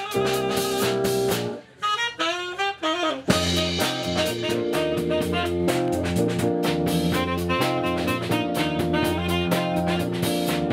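Instrumental background music. One passage breaks off about a second and a half in, a lone melody line bending in pitch follows, and just after three seconds a full band with a steady drum beat comes in.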